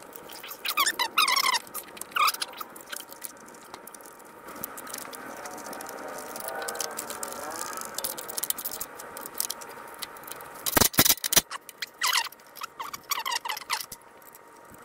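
Small engine parts being handled and fitted back onto a lawn mower: scattered light clicks and scraping, a few faint squeaks, and a quick run of sharp knocks about eleven seconds in.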